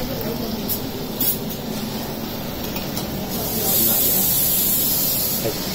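Steady hiss of vegetables cooking in a lidded pan over a gas burner. It grows a little louder for a couple of seconds past the middle.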